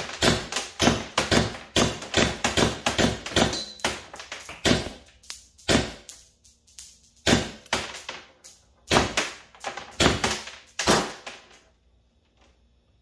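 Valken M17 magazine-fed paintball marker firing semi-automatically on compressed air: a long, irregular string of sharp shots in quick runs with a few short pauses, stopping about eleven seconds in. It feeds and fires the whole magazine without a misfire.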